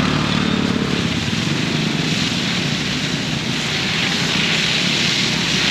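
An engine running steadily, with a rapid low pulsing.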